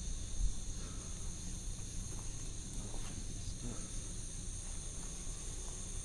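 Night insects trilling steadily in a high, even chorus over a low rumble, with a single low thump about half a second in.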